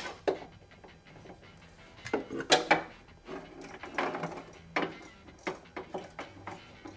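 Irregular clicks and knocks of hand tools working a hard-to-reach fastener on a metal storage panel, in quick clusters with short pauses between.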